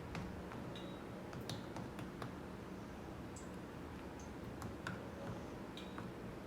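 Scattered light clicks and taps of a spoon against a bowl while Oreos are turned in pancake batter, a few with a brief high ring.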